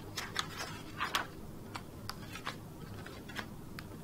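Paper pages of a bound booklet being turned by hand: a few short rustles in the first second or so, then scattered light paper ticks.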